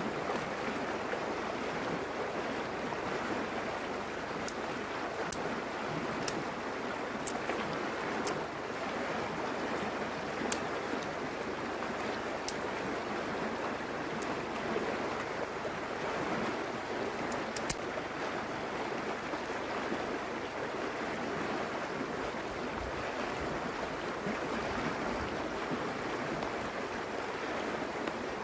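Shallow, fast river rushing steadily over stones. A few short, light clicks sound at scattered moments in the first two-thirds.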